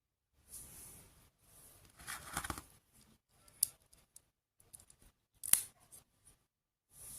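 Hands working on a toy's packaging and plastic parts: a run of short scraping, rustling strokes with two sharp clicks, the second one about five and a half seconds in the loudest.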